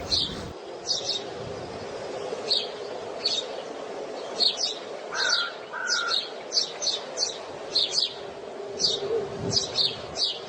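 Birdsong: small birds chirping over and over, short high chirps every half second or so, with a two-note whistled call about five seconds in. A faint steady hum lies underneath.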